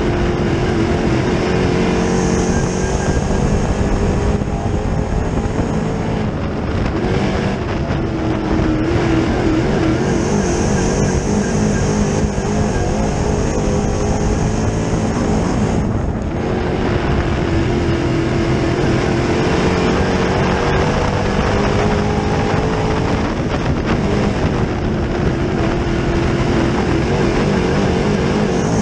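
Dirt Late Model race car's GM 604 crate V8 engine, heard from inside the cockpit while racing. The note falls as it lifts into the turns and rises again on the straights, in a repeating cycle of about six to seven seconds per lap.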